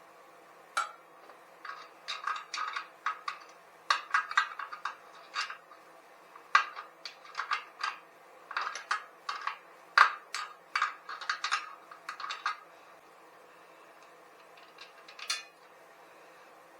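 Metal tools and engine parts clinking and clattering in irregular runs of short, sharp, ringing knocks, with the loudest knock about two-thirds of the way through. This is hand work on a small bicycle engine kit during its removal and fitting.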